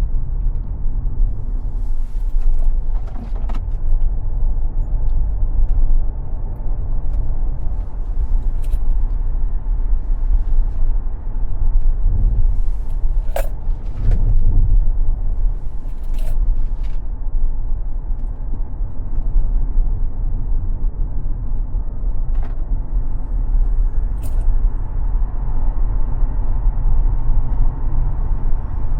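Tesla Model X electric car driven on a racetrack: a steady low rumble of road and tyre noise with no engine sound, broken by a few short sharp clicks.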